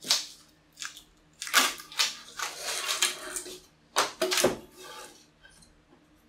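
A utility knife scrapes and slices through plywood along a cut-out circle, with scratchy strokes and small cracks. About four seconds in the waste wood snaps away with a sharp crack, then a deeper thud as an offcut drops onto the wooden workbench.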